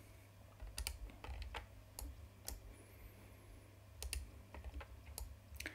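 Faint, scattered clicks of a computer mouse and keyboard, a handful spread irregularly over a few seconds, with a low steady hum underneath.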